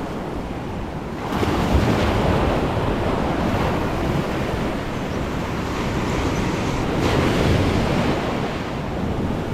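Ocean surf washing onto the shore, swelling about a second in and again around seven seconds, with wind on the microphone.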